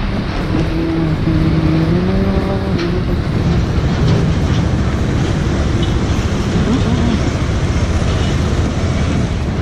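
Bajaj Pulsar 180 motorcycle's single-cylinder engine running while riding, with a steady low rumble of engine and road noise.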